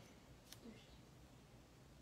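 Near silence: room tone, with one faint short click about a quarter of the way in.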